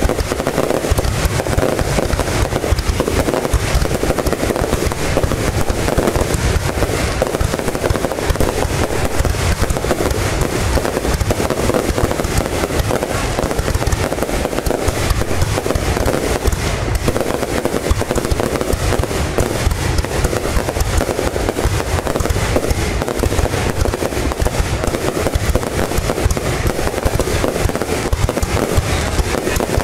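Fireworks display: a dense, continuous barrage of bangs and crackling with no pause.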